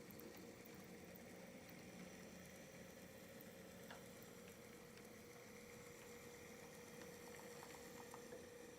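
Near silence: a faint steady hum with low hiss and a few light ticks, from an HO scale model locomotive running on the layout.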